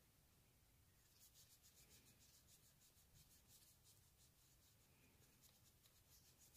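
Faint, scratchy strokes of a paintbrush dabbing and brushing acrylic onto sketchbook paper: a quick, uneven run of short strokes beginning about a second in, over a low room hum.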